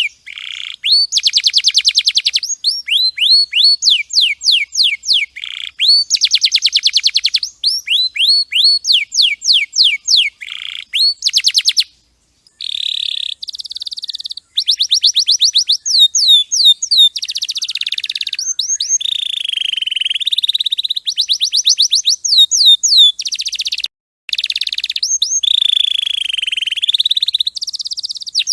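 Domestic canary singing a long song of rapid trills, phrase after phrase of fast repeated high notes with some smoother rolling stretches. The song cuts off abruptly twice, near the middle and about four-fifths of the way through.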